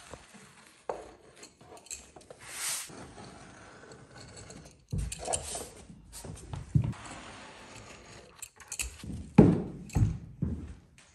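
Irregular clicks, knocks and thumps of hand work installing a stair carpet runner, with a brief scraping hiss early on and the loudest thumps in the second half.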